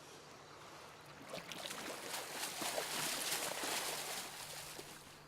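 Water splashing and sloshing in a run of irregular splashes that builds about a second in, is loudest near the middle and dies away near the end.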